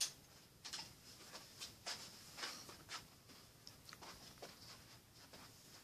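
Faint rustling with a few light clicks and ticks, mostly in the first three seconds: a person moving about, getting up and stepping away.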